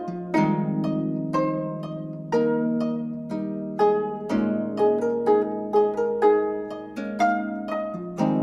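Gayageum ensemble playing: plucked notes in chords, struck about once a second, each ringing and fading over held low tones.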